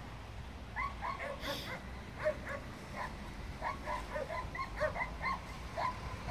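A dog barking in quick, short yips, several a second, starting about a second in, over a low steady background rumble.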